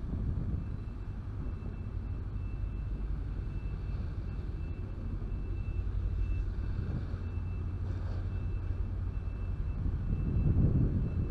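Low, steady rumble of city street traffic, swelling as a vehicle passes close near the end, with a faint high tone coming and going.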